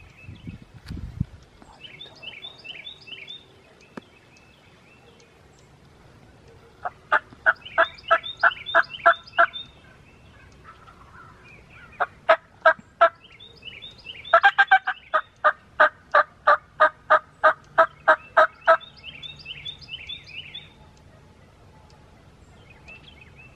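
Eastern wild turkeys yelping: three runs of loud, evenly spaced notes at about four or five a second, the longest lasting about four seconds, with fainter high chirping in the pauses.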